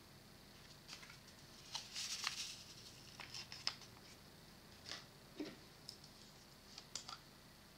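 Faint crinkling of a paper sachet and a scatter of small clicks as the sachet is handled and its powder shaken out, the loudest rustle about two seconds in.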